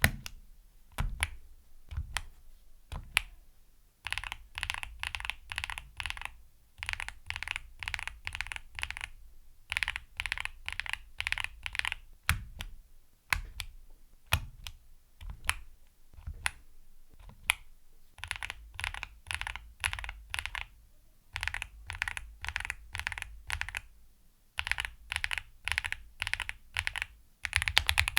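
Mechanical keyboard typing on an Akko SPR67 aluminium, spring-mounted 65% board with an FR4 plate and Akko V3 Cream Pro switches: a few separate key presses first, then bursts of fast typing broken by short pauses.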